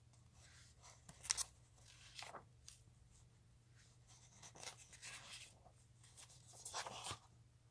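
Comic book pages being handled and turned: a few short, soft paper rustles, the sharpest about a second in.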